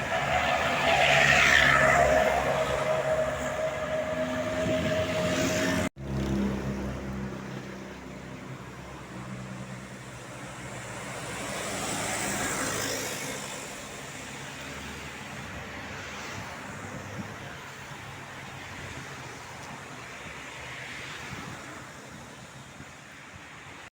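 Buses passing on a road. In the first six seconds a loud pass carries a long steady horn note. After an abrupt cut, engine and tyre noise swells and fades as another bus goes by about twelve seconds in, with a fainter pass near the end.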